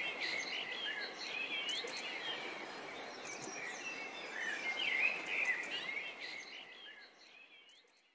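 Birds chirping and twittering over a steady background hiss, fading out over the last couple of seconds.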